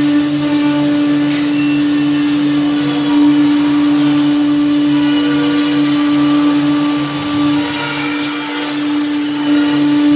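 Electric woodworking sawing machine running steadily: a loud, steady hum over a hiss, with a low throb pulsing about three or four times a second.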